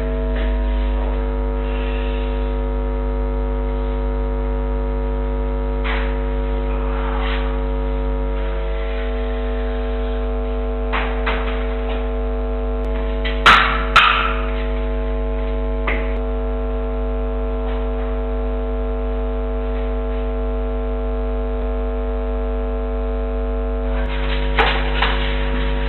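Steady electrical mains hum with a stack of buzzing tones, carried on the security-camera audio. A few scattered knocks break through it, the loudest a sharp bang about halfway through, and there are a few thuds near the end.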